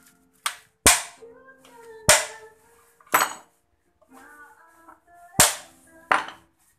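Six sharp metal hammer blows, irregularly spaced, driving out a motorcycle's engine mounting bolt to drop the engine from the frame. Faint background music runs underneath.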